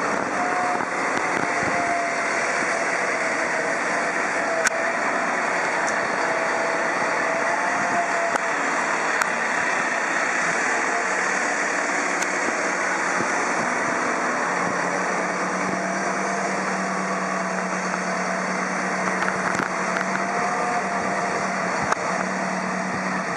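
Manitou MRT2540 rotating telehandler's diesel engine running steadily as the machine drives, with a faint wavering whine above it. A steady low hum joins about two-thirds of the way through.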